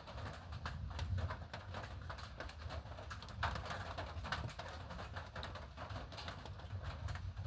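Rain falling, heard as a constant low rumble with many irregular sharp taps of drops.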